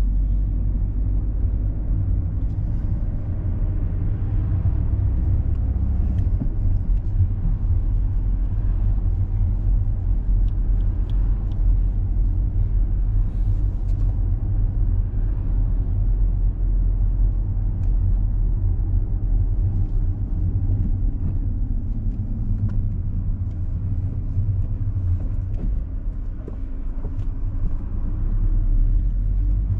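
Engine and road noise inside a moving car: a steady low rumble, with the engine note rising and falling a few times as it is driven.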